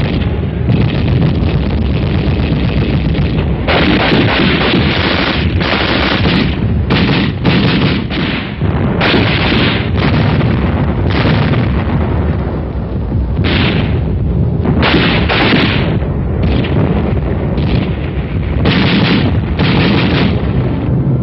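Battle sound of artillery fire and gunshots: many sudden blasts in quick succession over a continuous heavy rumble.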